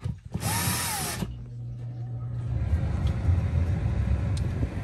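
Cordless drill with a hole saw cutting through fiberglass duct board in one short run about a second long, its motor whine rising and then falling as it spins up and down. A low steady rumble follows.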